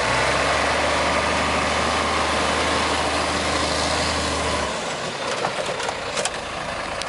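Diesel engine of an off-road army truck running steadily in soft sand, a low drone under a broad hiss; the drone drops away about two-thirds of the way through.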